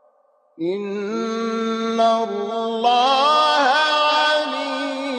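A male Quran reciter chanting a verse in melodic style (tilawat). After about half a second of near silence the voice sets in suddenly and holds long notes with ornamented turns in pitch.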